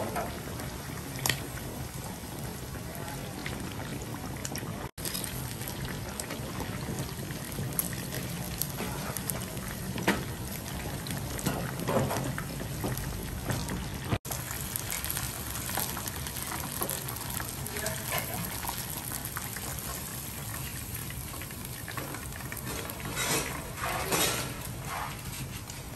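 Large breaded squid cutlet deep-frying in hot oil in a cast-iron pan: a steady bubbling sizzle, with a few sharper clicks and scrapes of wooden chopsticks against the pan as it is turned and lifted.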